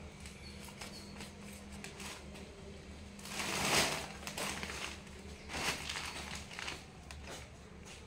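Newspaper crinkling and rustling under a jackfruit as it is shifted and laid on its side, in several bursts, the loudest about three and a half seconds in. A low steady hum runs underneath.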